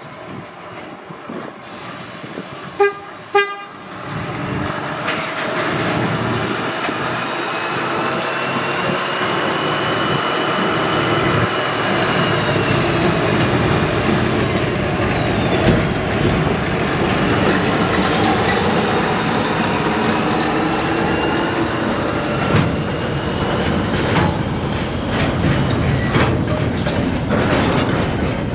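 Two short blasts on a diesel locomotive's horn about three seconds in, then the train's running noise builds and holds steady, with a high whine that rises and then falls.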